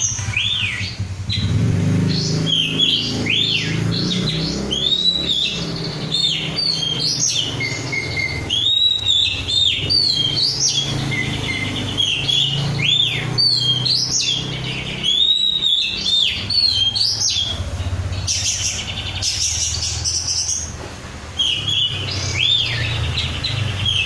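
Oriental magpie-robin (kacer) singing in full voice, a continuous run of rapid arching whistled notes, with a steady low hum underneath.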